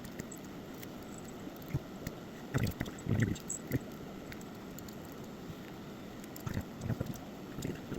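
Small clicks, taps and scrapes of hand tools and fingers working on a smartphone's internal parts, in two short clusters: about two and a half seconds in, and again near the end.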